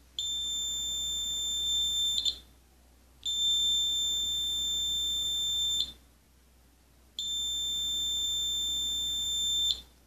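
Buzzer of an Arduino Nano fire alarm sounding its alarm tone: three long, steady high-pitched beeps, each about two and a half seconds long, with about a second between them.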